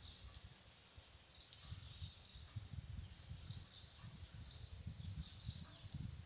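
Birds calling over and over in short falling chirps, over a faint steady hiss and an uneven low rumble.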